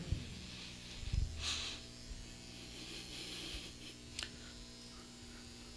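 Steady low electrical mains hum from the microphone and sound system, with a faint low bump about a second in and a single click a little after four seconds.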